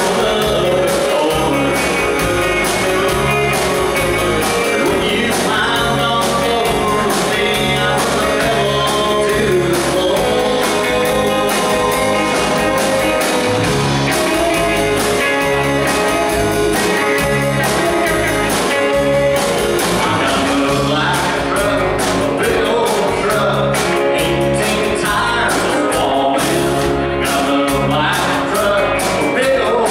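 Live rock band playing through amplifiers: two electric guitars over a steady drum-kit beat with cymbals, and a man singing.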